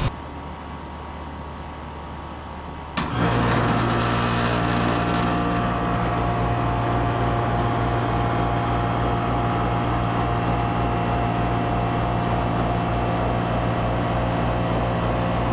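Air-conditioner condensing unit starting up: a sharp clack about three seconds in as it kicks on, then the compressor and fan running with a loud steady hum and a low even pulsing.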